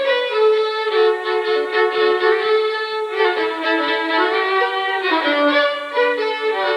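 A lively fiddle tune in Cape Breton style, played in quick notes, often two sounding at once.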